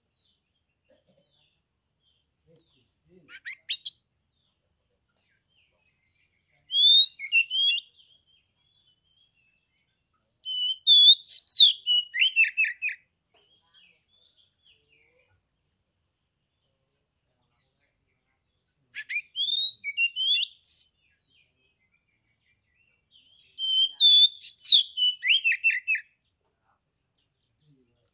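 Oriental magpie-robin (kacer) singing: a short call about three seconds in, then four whistled phrases of one to two and a half seconds each with pauses of several seconds between them, the last two repeating the first two.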